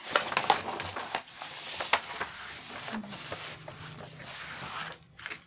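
A large sheet of brown paper rustling and crackling as it is laid down and smoothed flat by hand. It is loudest in the first two seconds, then softer, dying away near the end.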